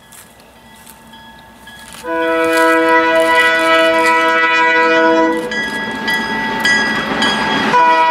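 Horn of a CN GP38-2W diesel locomotive, sounding as a loud chord of several held notes from about two seconds in. The chord thins and turns rougher midway, then comes back full near the end.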